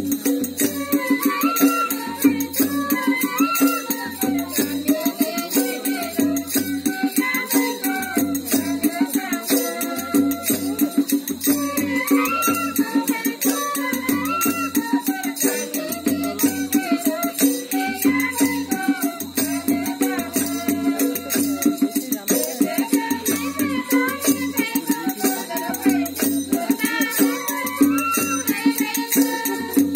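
Traditional folk music accompanying a dance: a gliding melody over a drum beat and constant rattling, jingling percussion.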